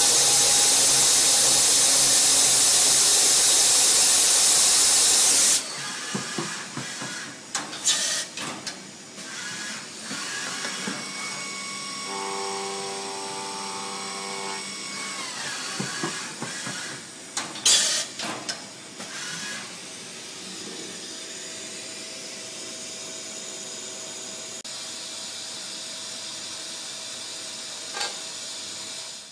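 Mazak VTC CNC machining centre countersinking stainless steel plate under coolant: a loud steady hiss of coolant spray that cuts off suddenly about five seconds in. After that the machine runs much more quietly, with scattered clicks and knocks, a brief steady whine midway and one sharp knock near the end.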